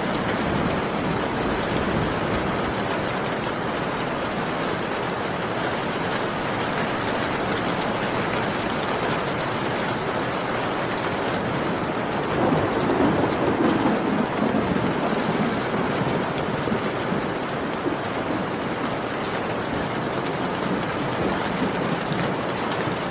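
Steady rain falling, with a low rumble of thunder that swells about halfway through and fades over a few seconds.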